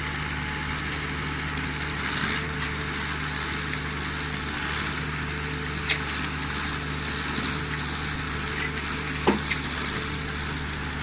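Truck-mounted concrete mixer pump running steadily: a constant engine hum under mechanical noise. Two sharp clanks come about six and nine seconds in.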